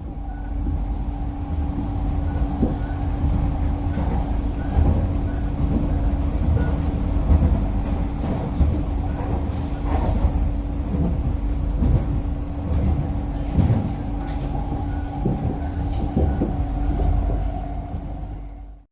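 A train running: a steady low rumble with a constant hum and scattered light clicks and rattles.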